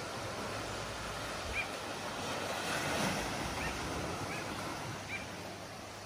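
Small waves washing onto a sandy beach, with one wash swelling up about halfway through. A few short, faint high chirps are heard over it.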